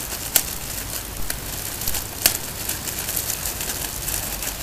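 Clear plastic bag crinkling and crackling as it is worked open by hand, with sharper crackles about half a second in and again a little after two seconds.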